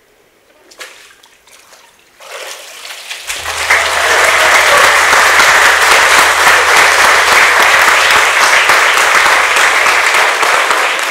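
Congregation applauding. The clapping begins about two seconds in, swells into loud, dense, steady clapping, and cuts off abruptly at the end.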